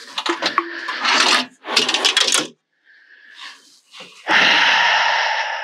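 Slide-out bench in a ute canopy being pulled out on its runners: a run of knocks and scrapes over the first two seconds or so. Near the end comes a steady rushing noise of just over a second.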